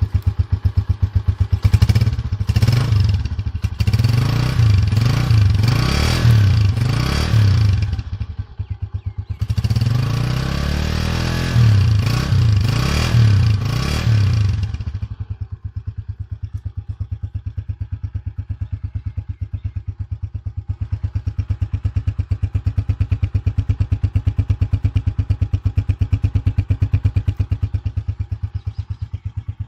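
125 cc single-cylinder four-stroke motorcycle engine being revved in repeated throttle blips, easing off briefly about eight seconds in. About halfway through it settles to a steady, evenly pulsing idle.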